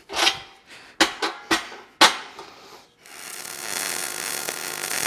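A few sharp metal clanks and knocks from the steel frame. Then, about three seconds in, a wire-feed MIG welder's arc starts a steady, loud crackle as the skid steer attachment plate is welded onto the steel frame.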